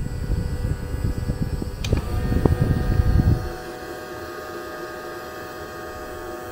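Kid Odyssey Turbo Bubbles Whale Voyager bubble machine switched on, its fan and wand motor running with a steady whine. A loud, uneven low rumble with a click about two seconds in dies away after about three and a half seconds.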